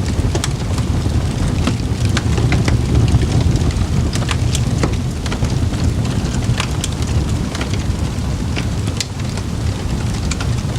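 Campfire burning, with frequent irregular sharp crackles and pops over a steady low rumble of the flames.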